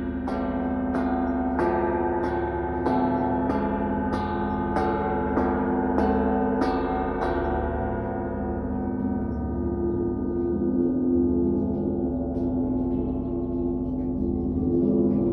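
Large oval welded metal sheet struck over and over with a soft mallet, about one and a half strikes a second. It rings like a gong, with a steady low hum under each strike. The strikes stop a little past halfway and the metal keeps ringing, with a few faint taps near the end.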